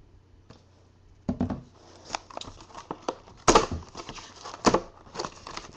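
Cardboard 2012 Panini Certified trading-card box being handled and opened by hand: rustling and scraping of cardboard with sharp knocks, the loudest about three and a half and nearly five seconds in.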